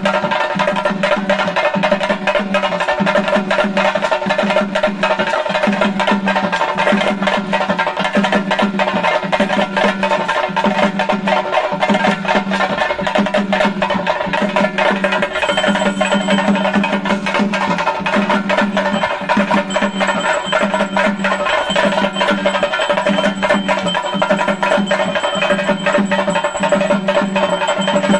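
Theyyam ritual percussion: fast, dense chenda drumming in a steady rhythm, with sustained ringing tones over it.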